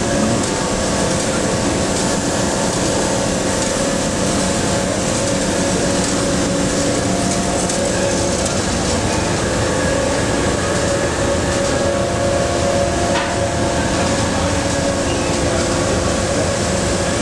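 Air-conditioning machinery running: a steady, loud rush of air with several steady hum tones over it.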